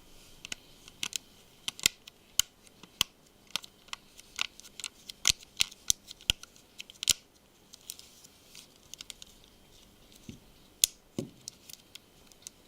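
Samsung Galaxy Note 2's plastic rear battery cover being pressed onto the phone, its snap clips clicking into place around the edges: a long run of sharp, irregular clicks.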